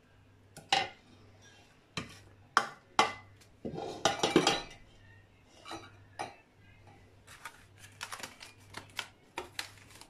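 Kitchen utensils and containers handled on a worktop: a string of separate clinks and knocks, densest and loudest about four seconds in, over a faint steady low hum.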